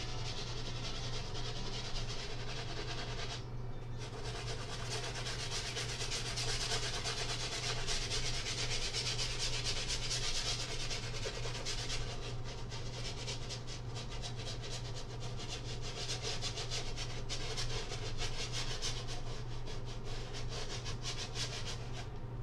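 Bristle brush scrubbing oil paint into a stretched canvas in quick back-and-forth strokes, with a short pause about three and a half seconds in.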